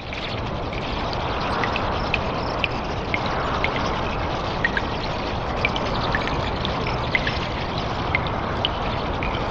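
Cave ambience: a steady rush of flowing water that swells and eases slowly, with many short, high drips plinking throughout. It fades in over the first second.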